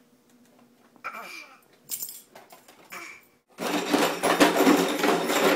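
A loud rattling clatter of hard objects, lasting about two seconds and starting about three and a half seconds in, after a few faint small knocks.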